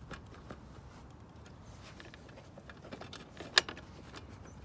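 Light clicks and rattles of hands working at a push mower engine's plastic fuel tank and recoil cover as it is pried up. One sharp click about three and a half seconds in.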